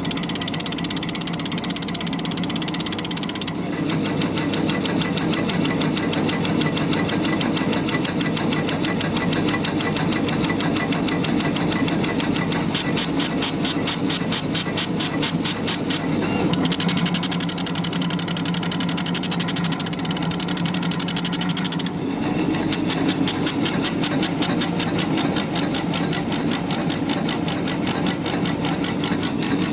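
Laser engraver at work, its motors driving the head back and forth in a fast, even rhythm as it fills in an engraving on plywood. The rhythm changes character about 4, 16 and 22 seconds in, as the head moves to new passes.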